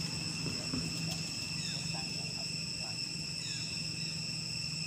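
A steady, high-pitched insect chorus, with a few short chirps over it and a low steady hum underneath.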